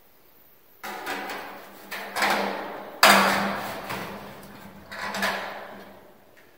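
Stainless steel stack pipe clanking as a metal alignment-fin strap is worked into place and bolted around it: four knocks, the loudest about three seconds in, each leaving the pipe ringing briefly.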